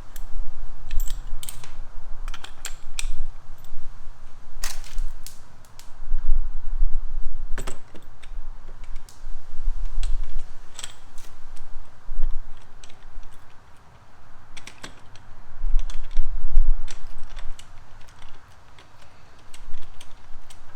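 Scattered light clicks and taps of hand tools and metal hardware being handled while a frame slider bolt is fitted on a motorcycle, with irregular low rumbles.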